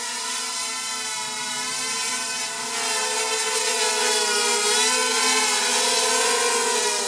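A small FPV quadcopter's motors and propellers whining in flight, the pitch wavering up and down with the throttle. It gets louder about three seconds in as it flies closer.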